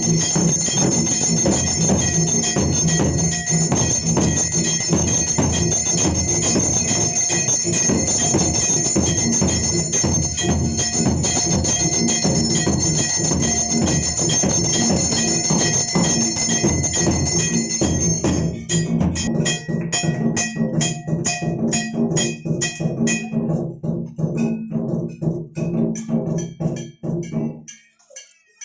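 Temple bells clanging and drums beating together in a continuous din. About two-thirds of the way in it thins into separate strikes, roughly four a second. Near the end the drumming stops and a few faint bell clinks remain.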